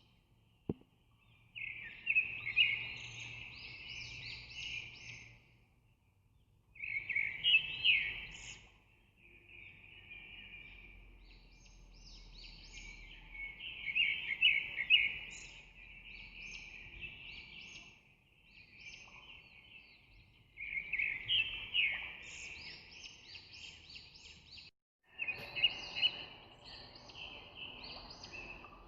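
Birds singing and chirping in chattering bursts of a few seconds each, with short pauses between.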